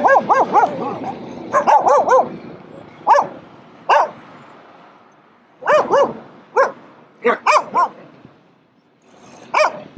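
Dogs barking and yipping in short separate barks: a quick flurry at the start, then single barks and pairs spread through the rest.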